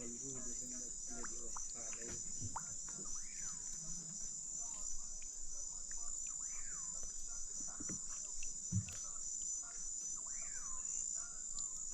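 Insects chirring in a steady, high-pitched pulsing drone. A fainter call that sweeps up and falls back repeats about every three and a half seconds, with a few faint clicks.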